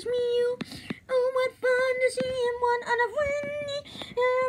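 A voice singing a simple children's tune unaccompanied, syllable by syllable, mostly on one repeated note, with a short dip in pitch a little past halfway.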